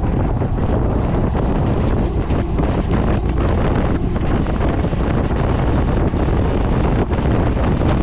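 Steady, loud wind buffeting the microphone of a GoPro 11 action camera on a moving motorcycle.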